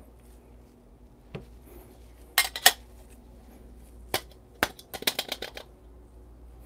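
Stainless steel dosing cup and espresso portafilter knocking together: a few separate sharp metal clinks, then a quick run of about eight taps as the cup is shaken over the portafilter to drop the ground coffee into the basket.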